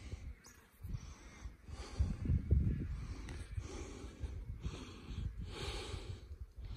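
Wind buffeting the microphone in uneven gusts, with a few louder breathy puffs near the end.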